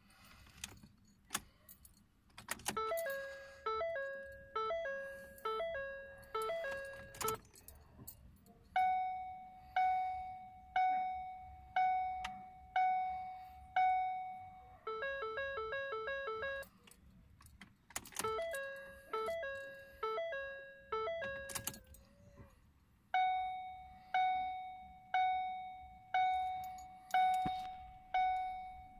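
2013 Ford Focus instrument-cluster warning chimes sounding in a repeating cycle: a two-note chime about once a second, then a single ding about once a second, then a short run of fast beeps, and round again, while the car shows an engine-fault warning and will not start. A few clicks come just before the chimes begin.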